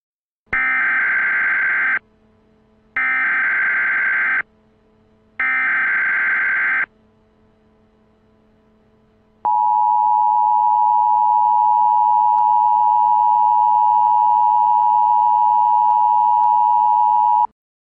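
Emergency Alert System signal: three short bursts of buzzy SAME header data tones, then the two-tone EAS attention signal held steadily for about eight seconds, cutting off suddenly. It opens a fire warning alert.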